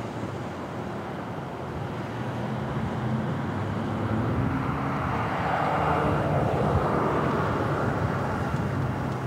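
Motor vehicle engine running over road noise, growing louder in the second half as traffic passes.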